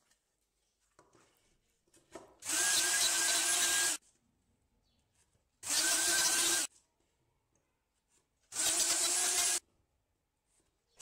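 Plunge router running in three short bursts of about a second each, the first a little longer, cutting angled louver mortises in a wooden stile through a jig. Each burst starts and stops abruptly, with faint knocks of the jig being moved between them.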